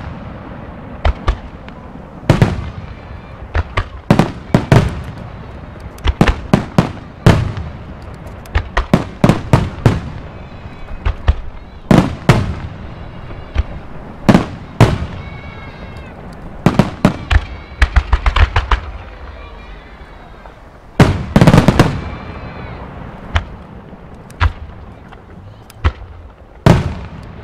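Aerial firework shells bursting: sharp bangs in an irregular string, some in quick clusters, each followed by a short echoing rumble. The heaviest cluster comes about three-quarters of the way in.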